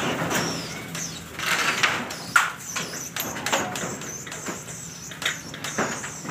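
Blue PVC well casing pipe being worked by hand down into a borehole: irregular knocks and scrapes, with a sharp click about two and a half seconds in.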